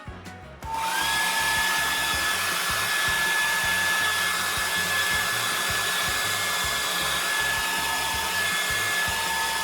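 Handheld hair dryer switched on about a second in, its motor whine rising quickly to a steady pitch, then running steadily with a rushing air noise. It is drying a freshly sprayed layer of hair glue on the edges until it turns tacky.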